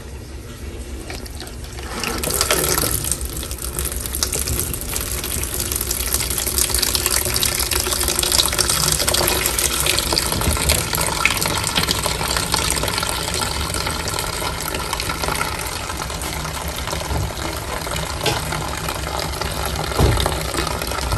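Kitchen faucet running a stream of water into a plastic mop bucket standing in a stainless steel sink, filling it with sudsy cleaning water. The splashing gets louder about two seconds in and then stays steady.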